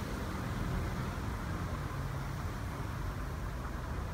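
Steady street noise: a low, even rumble of city traffic.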